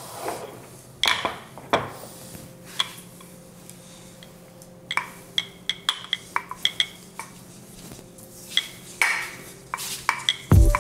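Ceramic mugs clinking against one another, with a spoon rattling inside, as they are picked up and carried: a scatter of light knocks and clinks.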